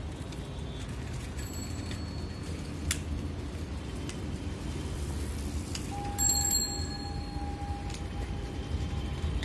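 Steady low outdoor rumble with short metallic bell-like rings, a faint one about a second and a half in and a brighter one about six seconds in, followed by a steady high tone held for about three seconds.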